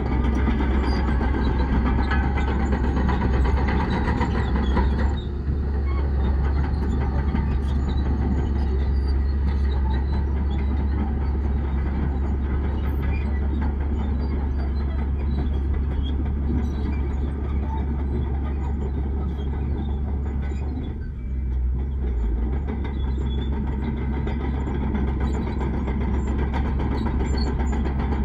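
Heavy diesel earthmoving machinery running steadily at a working pace, with a deep engine note and short easings of the engine about five seconds in and again about 21 seconds in.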